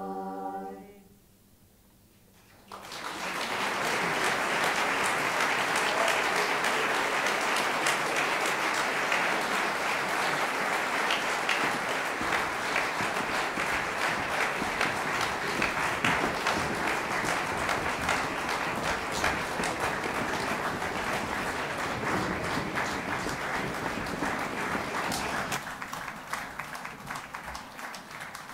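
A women's chorus's final held chord dies away about a second in, then after a brief hush the audience breaks into sustained applause, which thins out near the end.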